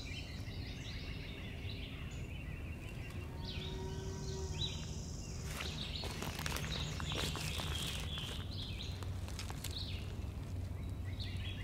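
Woodland ambience with small songbirds chirping and calling at intervals, and scattered rustling and clicking from about six seconds in.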